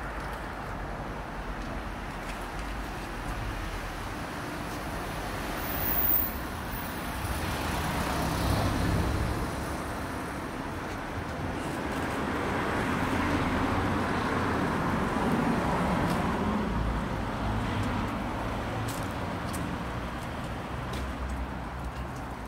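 Street traffic: a steady rumble of road vehicles that swells as vehicles pass about eight seconds in and again from about twelve to sixteen seconds in, with a brief bump about six seconds in.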